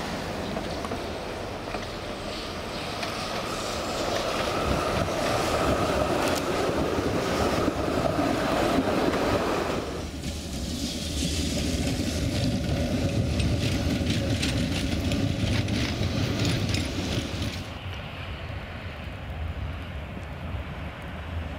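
Articulated electric tram running along its rails on a snowy street, with steady rolling and traffic noise that builds to its loudest about eight seconds in. The sound changes abruptly about ten seconds in, and again near the end, where it becomes quieter and duller as a tram approaches.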